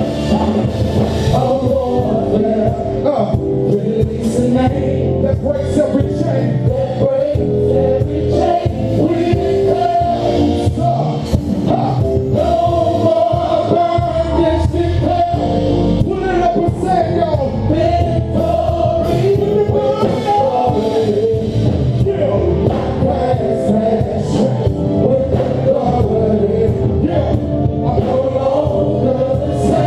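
Live gospel worship music: a choir or group of singers over a full band with drums.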